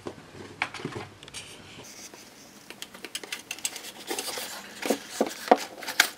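White paperboard box of a Daydream View VR headset being handled and the headset slid out of its tray: scattered light clicks and scrapes, busier in the last two seconds.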